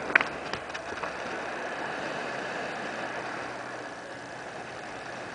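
Small boat underway: its motor running steadily under a hiss of wind and water, with a sharp click about a quarter second in.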